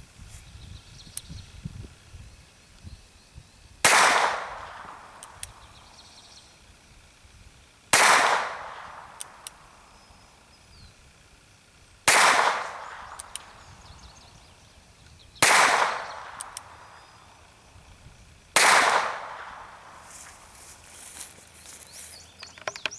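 North American Arms mini revolver firing five .22 Short rounds, one every three to four seconds, each a sharp crack with a trailing echo. Faint clicks come between the shots as the single-action hammer is cocked for each.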